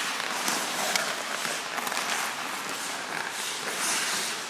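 Hockey skate blades scraping and carving on the ice as players cut on their inside edges, with a few sharp clicks of stick blades on pucks.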